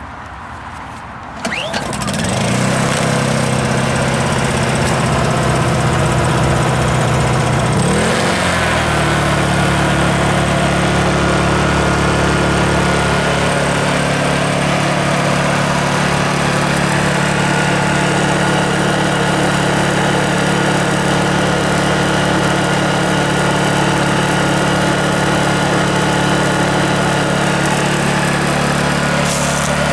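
Honda EU2000i inverter generator's small single-cylinder four-stroke engine starting about a second and a half in, then running steadily. Its engine note shifts around eight seconds in and holds even after that.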